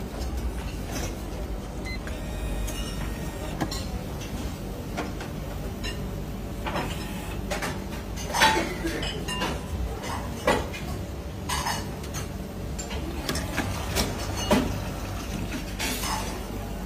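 Automatic self-pour beer server working through a pour with its glass-tilting holder: a steady low mechanical hum, with several short knocks and clinks along the way.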